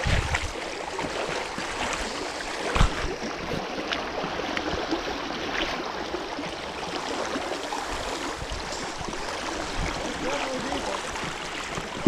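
Fast creek water rushing steadily around logs and over a shallow riffle, with a single dull knock about three seconds in.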